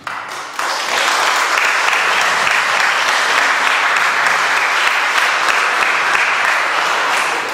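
Audience applauding: steady clapping that builds within the first second and fades away near the end.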